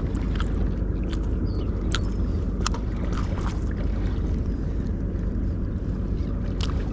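Steady low rumble of wind and water around a small fishing boat, with scattered light clicks and ticks.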